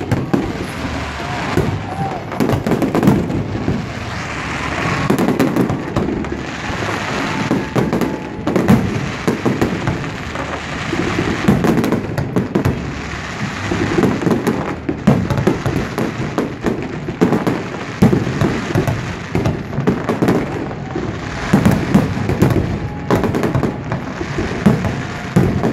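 Aerial fireworks display: shells bursting overhead with many sharp bangs in quick succession.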